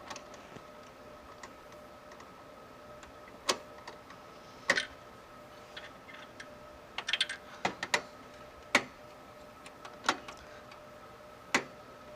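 Scattered light clicks and taps of a CPU heatsink being set on the processor and shifted to line its four screws up with the motherboard's socket holes, with a quick run of clicks about two-thirds of the way through. A faint steady hum sits underneath.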